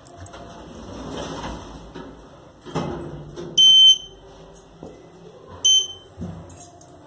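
Lift's floor-button panel giving two electronic beeps, a longer one about halfway through and a shorter one near the end as the ground-floor button is pressed, with a couple of dull knocks around them.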